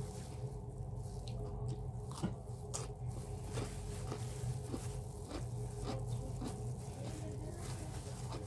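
Eating sounds: chewing and the crinkle of a thin plastic glove as a hand works rice and chicken on a plate, with scattered small clicks, the sharpest about two seconds in. A steady low hum runs underneath.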